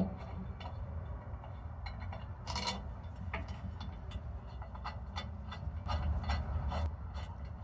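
Irregular metal clicks and knocks of hand tools on steel suspension hardware, with one sharp ringing metallic clink about two and a half seconds in.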